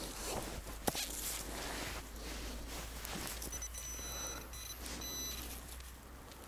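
Footsteps in snow, with a sharp click about a second in. Past the middle, a thin high-pitched beep sounds on and off for a couple of seconds.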